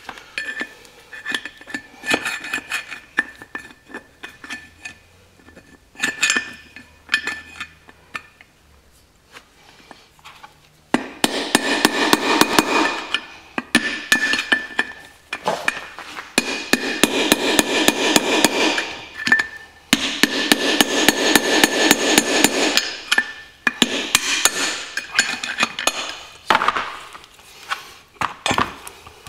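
Club hammer striking a metal drift against the old outer bearing race in a rear brake drum, knocking the race out of its bore. Scattered taps at first, then from about eleven seconds in, long runs of rapid, ringing metal blows with short pauses between them.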